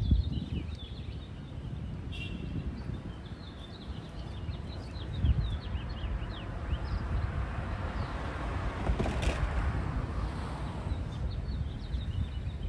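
Street ambience at a quiet railroad crossing: small birds chirping in quick short calls through the first half, over a steady low rumble. A passing vehicle's noise swells to a peak about two-thirds of the way through and then fades.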